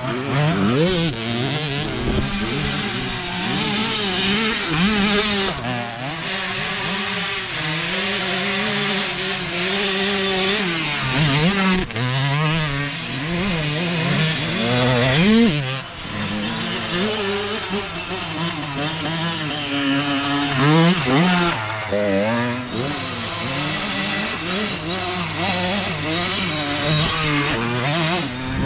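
Youth dirt bike engines revving hard and shifting as the bikes ride past, the pitch climbing and dropping again and again through the gears, with more than one bike heard at times.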